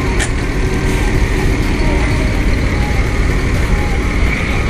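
Diesel engine of a Mercedes-Benz OH1626 coach running with a steady low rumble as the bus creeps up a ferry's loading ramp. A brief click sounds just after the start.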